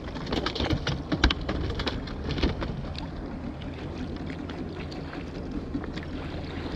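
Sharp knocks and clicks of a plastic bucket lid being pressed down and handled, bunched in the first three seconds, over a steady low rumble.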